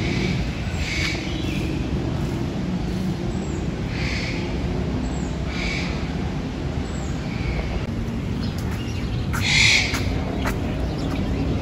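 Animal calls repeated every one to two seconds, the loudest near the end, over a steady low background din.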